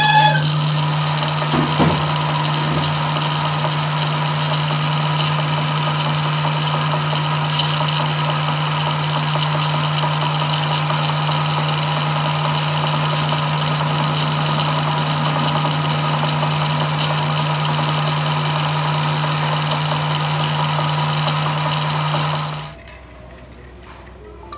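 Metal lathe running with a steady hum while a twist drill bores into the end of a spinning splined differential gear shaft. Near the end the lathe is switched off and the sound drops away quickly.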